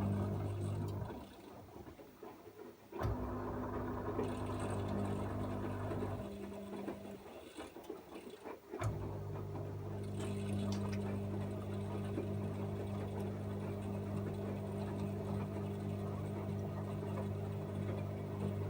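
AEG Öko-Lavamat 74780 washing machine running with a steady hum. The hum cuts out twice for about two seconds and starts again each time with a click, and water sloshes in between.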